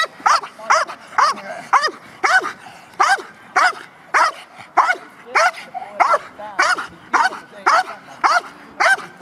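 Belgian Malinois barking steadily and rhythmically, about two sharp, high barks a second.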